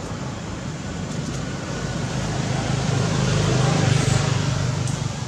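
A motor vehicle passing, its low engine hum and road noise building to a peak about four seconds in and then easing off.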